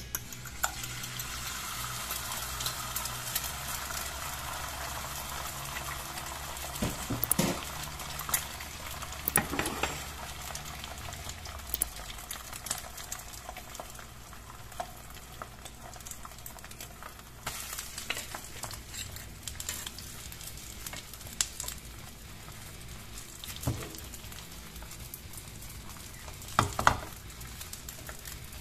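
Beaten egg sizzling and crackling in hot oil in a nonstick frying pan as it sets into a thin omelette, loudest just after it is poured in. A few sharper knocks come through, one near the end as a wooden spatula presses down on the pancake.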